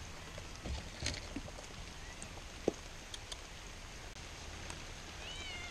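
Steady background hiss with a few light knocks; near the end a stray cat meows faintly, one short call that rises and falls.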